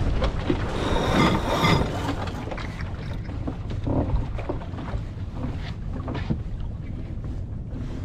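Wind buffeting the microphone over water rushing along a racing sailboat's hull. There is a louder surge of rushing noise about a second in, then scattered faint knocks.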